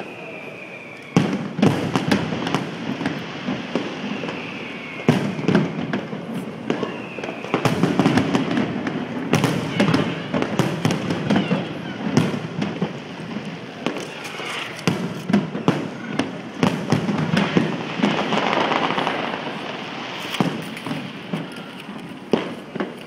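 Aerial fireworks display: a rapid, continuous series of shell bursts going off, sharp bangs over dense crackling, with a few falling whistles. The bangs start in earnest about a second in.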